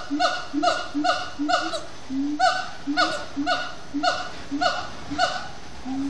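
Siamang gibbons singing: a steady run of loud, repeated barking calls, about two a second, each one dipping in pitch, with a short pause about two seconds in.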